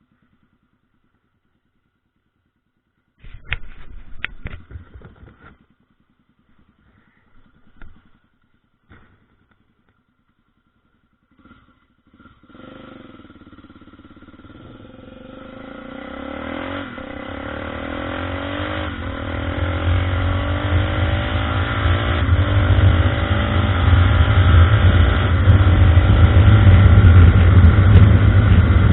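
Honda NX 350 Sahara's single-cylinder engine accelerating, its note rising in pitch and growing steadily louder from about halfway in. A few short bursts of sound come before it.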